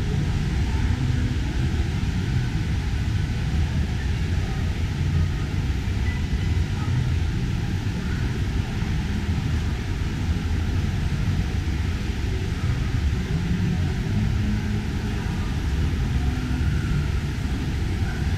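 A steady low rumble with an even hiss above it.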